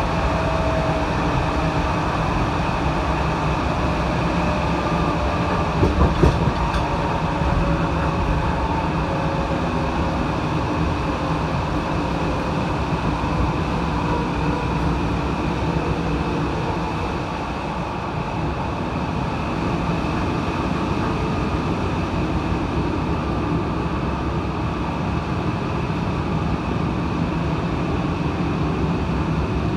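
A moving train heard from inside the carriage: the steady rumble and rolling noise of the wheels on the track, with a brief cluster of knocks about six seconds in.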